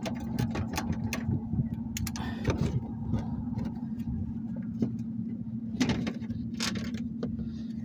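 Scattered sharp clicks and metal taps from a hand ratchet with a 10 mm socket working the bolts of a cover by a car's front suspension, over a steady low hum.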